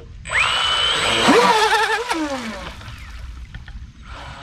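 Homemade RC speedboat's battery-powered electric motor and propeller spinning up suddenly as the boat launches hard at about 80% throttle: a rising whine over a rush of churned water, the pitch wavering, then falling away about two seconds in.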